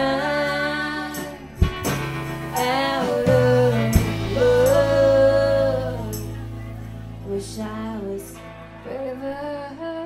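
Live indie-pop band: a woman's voice singing long held notes with vibrato over strummed electric guitar, steady low bass notes and tambourine, with a couple of sharp hits in the first half.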